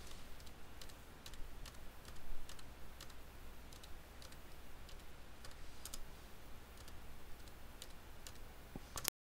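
Faint, irregular keystrokes on a computer keyboard, a click or two every second, over a low steady hum; the sound cuts off suddenly near the end.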